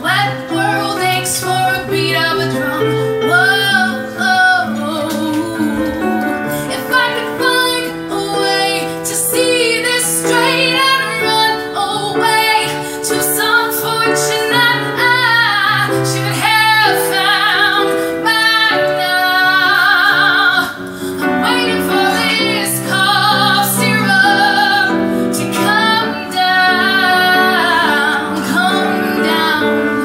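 A woman singing a pop song solo with vibrato on her held notes, accompanied by piano.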